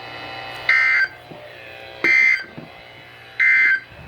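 Three short bursts of screechy two-pitch EAS/SAME digital data tones on a NOAA Weather Radio broadcast, about a second and a third apart: the End of Message signal that closes the flash flood warning.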